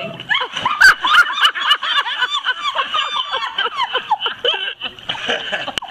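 People laughing hard in quick, high-pitched peals. A single sharp smack about a second in, which is the loudest moment: a diver hitting the pool water.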